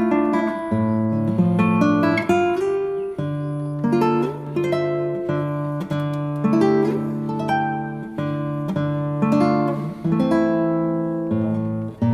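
Background music: a plucked acoustic guitar playing a melody of picked notes.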